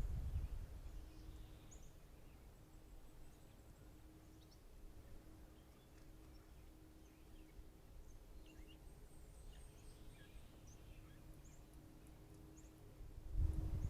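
Faint outdoor ambience with scattered, distant bird chirps and calls, over a faint steady hum. Low rumbles on the microphone at the start and again near the end are the loudest parts.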